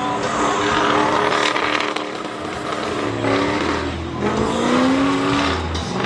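Pickup truck doing a burnout: the engine is held at high revs, then dips and climbs again a few times in the second half, over the hiss of spinning rear tires on pavement.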